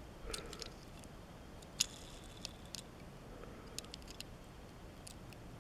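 Faint handling noise: scattered small clicks and rubs as a Hot Wheels toy truck is turned over in the fingers, over a low steady hum, with the sharpest click about two seconds in.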